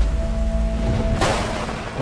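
Film trailer score: a low rumbling drone under a held tone, then a sudden noisy swoosh a little over a second in that quickly dies away.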